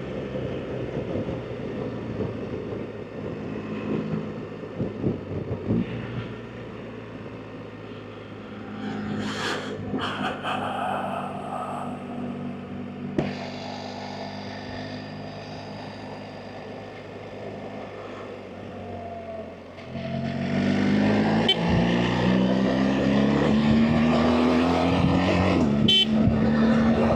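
BMW R 1300 GS Adventure's boxer-twin engine running at low revs under wind noise, then opening up hard about 20 seconds in, getting much louder with its pitch rising as the bike accelerates.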